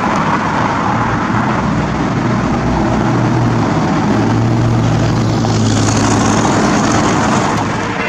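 Street traffic: the engine and tyre noise of motor vehicles close by, loud and steady.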